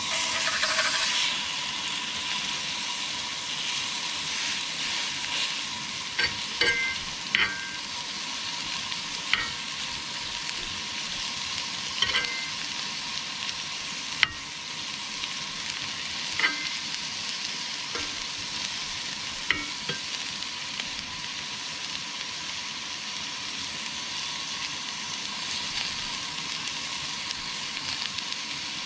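Beef patty sizzling in a cast iron skillet with onions, loudest just as it goes into the pan, then a steady frying hiss. A metal spatula scrapes and clinks against the pan about nine times.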